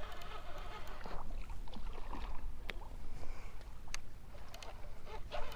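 Rod and baitcasting reel being handled while a small flathead catfish is brought in: a few scattered sharp clicks and ticks over a low steady rumble.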